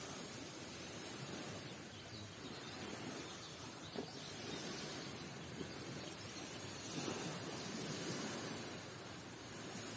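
Steady outdoor background noise at night, an even hiss with no clear tones, broken by one short click about four seconds in.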